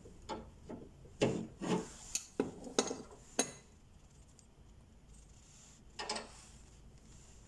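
Metal hand tools (pincers, then an open-end spanner) working the nut on a treadle sewing machine pedal's pivot, tightening it down on the newly fitted bearing: a run of about eight short strokes of metal grating on metal in the first three and a half seconds, then one more about six seconds in.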